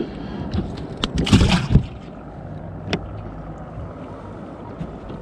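Handling noises in a small fishing boat: a few sharp knocks and a brief loud rustling burst about a second in, over a low steady hum.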